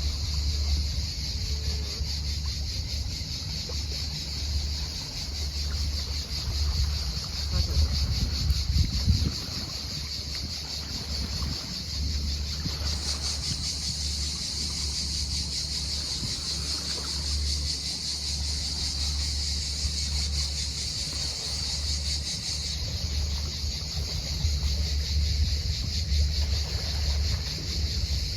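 Cicadas singing in a steady, unbroken high-pitched drone, over wind rumbling on the microphone that gusts harder about eight seconds in.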